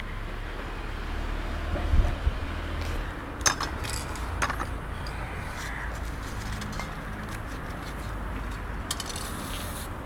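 Aerosol spray-paint cans giving short hisses, with a longer hiss near the end, among knocks of handling and a thump about two seconds in, over a steady low rumble.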